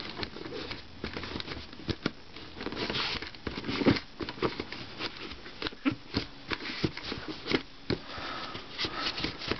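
Cloth rubbing and wiping over a plastic Donald Duck nightlight figure: irregular scratchy rubbing strokes with small clicks and knocks, the sharpest about four seconds in.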